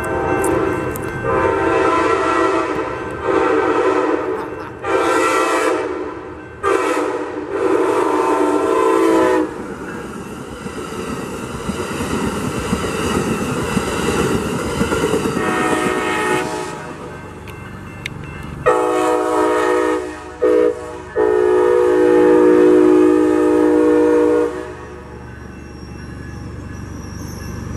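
Passenger-train air horns at a grade crossing. An Amtrak Pacific Surfliner's horn sounds a run of blasts over the first nine seconds or so, then the train passes with rolling wheel and car noise. Past the middle, a Coaster commuter locomotive's horn sounds a few blasts, the last one held for about three seconds.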